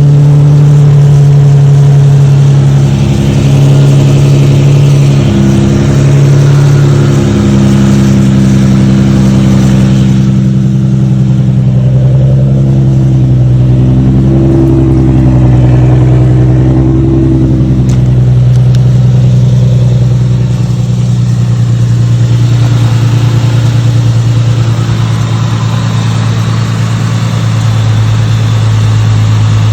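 2010 Infiniti M35's 3.5-litre V6 running with a loud, steady low hum whose pitch drifts slightly, with a hiss that fades out in the middle and returns near the end. This is the strange noise the owner is asking about, with no cause given.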